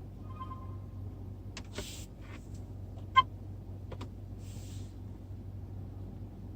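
Steady low hum with a few scattered clicks and short rustles, the loudest a sharp click about three seconds in: a dash camera and its cable being handled.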